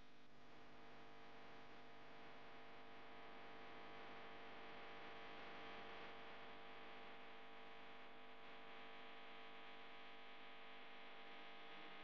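Faint background music of steady, held tones.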